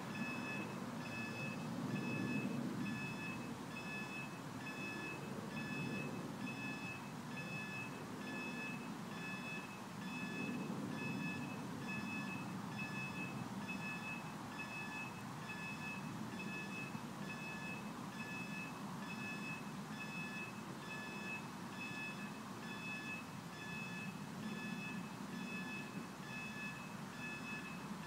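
Level crossing warning alarm beeping repeatedly at one steady pitch as the crossing closes for an approaching train, over a low rumble.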